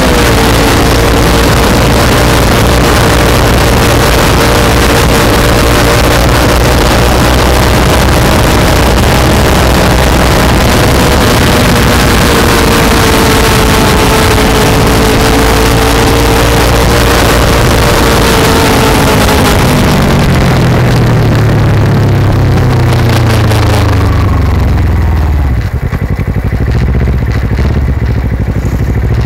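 Kawasaki Ninja parallel-twin engine heard through an aftermarket carbon-fibre slip-on muffler, recorded right beside the exhaust while riding, under heavy wind and road rush. The engine note holds steady, then falls in pitch over the last several seconds as the revs drop, and the wind noise fades near the end.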